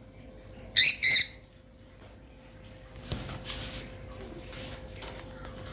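Two short, shrill squawks close together from a pet lovebird, about a second in, followed by fainter scratchy noise.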